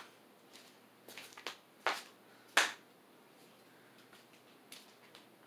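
A handful of short, sharp clicks at irregular intervals, the loudest about two and a half seconds in, over faint room tone.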